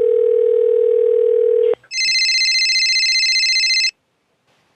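Telephone dial tone, one steady low pitch, for almost two seconds, then after a short break a high, fast-fluttering electronic phone ring for about two seconds: a call being placed and ringing through.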